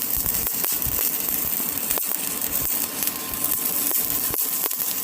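Electric arc welding: the arc crackles and sizzles steadily as a weld bead is run.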